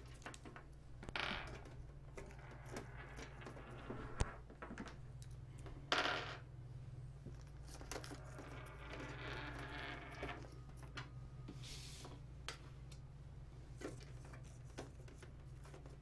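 Faint handling of a PC case's glass side panel: scattered small clicks and taps, a sharper click about four seconds in, and a few brief rustles, over a steady low hum.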